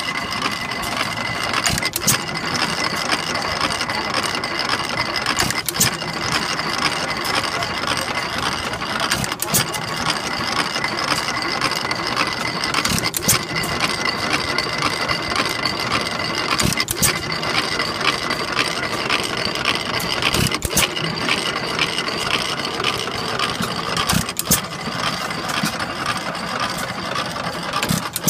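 Armstrong Quam horizontal hit-and-miss gas engine running: a sharp firing bang about every four seconds, with a steady mechanical clatter in between as the flywheels coast.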